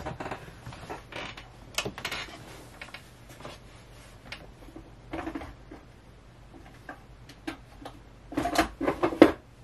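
Small objects being handled while someone searches for a small part: scattered light clicks and knocks, then a louder cluster of knocks and rustling near the end.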